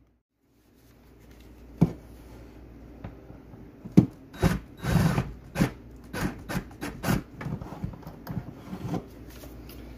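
Irregular knocks, clatter and scraping of a cordless drill working against wooden cabinet framing. It starts after a brief silence, and the loudest knocks come about four to five seconds in.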